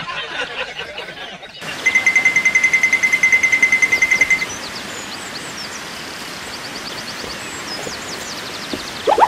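Outdoor nature ambience: a fast, even trill at one high pitch for a few seconds, then a steady hiss with scattered bird chirps, and a rising whistle right at the end.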